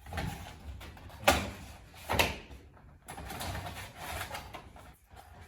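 Handling noise from a coffered ceiling tile being worked by hand: rustling and scraping with two sharp taps, about a second and two seconds in.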